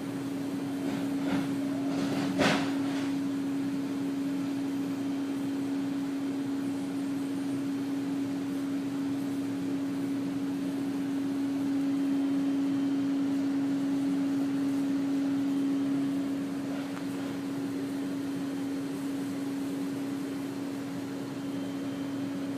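A steady, low mechanical hum on one pitch over a hiss of noise: the persistent nuisance drone being complained about. It swells slightly about halfway through, and a sharp click comes about two seconds in.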